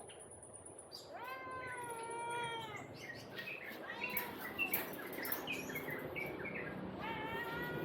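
Domestic cat meowing: one long drawn-out meow about a second in and another near the end. Between them come a run of short, high chirping calls.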